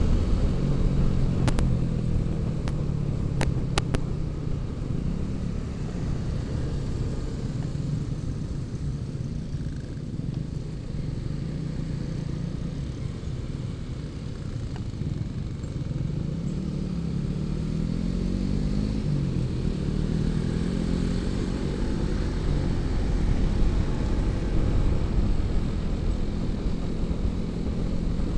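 Honda ADV150 scooter's 150 cc single-cylinder engine running under way through traffic, with wind rushing past. The engine's pitch falls and climbs again about two-thirds of the way through as it eases off and pulls away.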